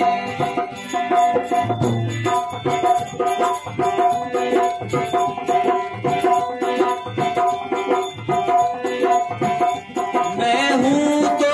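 Instrumental interlude of a devotional shabad: a short melodic phrase repeating over a steady hand-drum rhythm, with gliding, voice-like lines coming in near the end.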